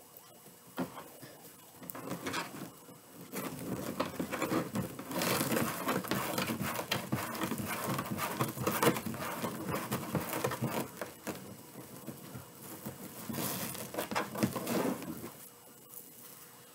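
Rustling and crinkling of a roll of gold metallic mesh ribbon being handled and pulled loose by hand. It starts about two seconds in, is busiest in the middle with a short lull, picks up again briefly and stops shortly before the end.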